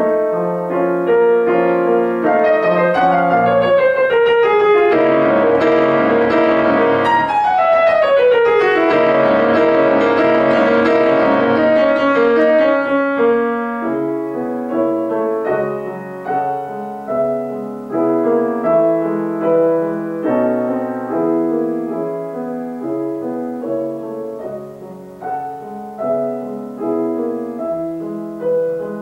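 Solo grand piano played: a loud, dense passage with rapid sweeping runs in the first half, giving way about halfway through to slower, softer chords that fade bit by bit.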